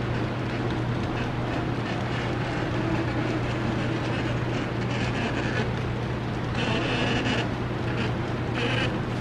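Model freight train running on layout track: covered hopper cars rolling over a truss bridge with a steady low hum and an even rumble and rattle of wheels, brightening twice in short spells in the second half.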